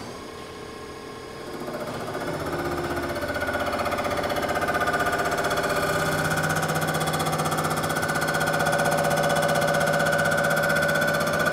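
Rottler surfacing machine's carbide mill head starting up and cutting across an engine cylinder head to resurface its warped deck. It starts about a second and a half in and builds to a steady machining whine with several held tones.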